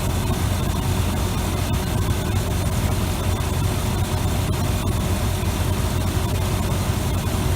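A Chevrolet 454 big-block V8 idling steadily with a constant low hum, its fan running; the air-conditioning compressor is not kicking on.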